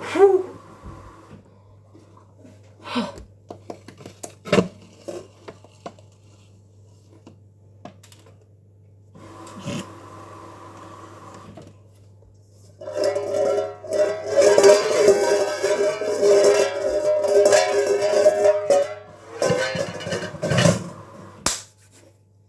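A few scattered knocks and clicks, then about six seconds of loud plucked-string music, ukulele-like, in the second half.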